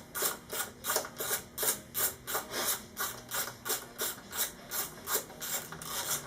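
Rasping strokes in a quick, even rhythm as a hand tool turns the long stock chain-adjuster bolt out of a BMW S1000RR swingarm.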